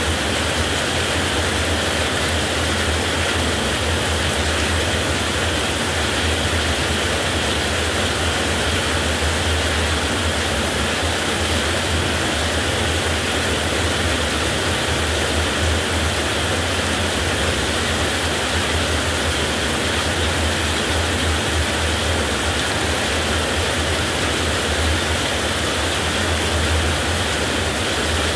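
Heavy rain falling steadily, an even hiss with a constant low rumble underneath and no distinct thunderclaps.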